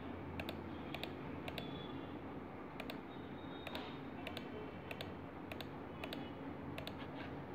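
Computer mouse button clicking, mostly in quick pairs every half second to a second, as the fill tool is clicked into section after section of a drawing, over a faint steady low hum.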